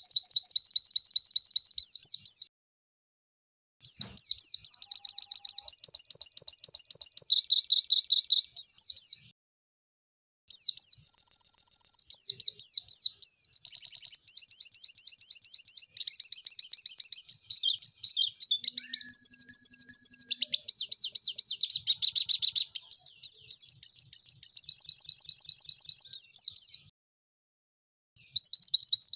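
White-eye (pleci) singing long, rapid, high chattering song phrases, broken by pauses of about a second a few seconds in, around ten seconds in, and near the end.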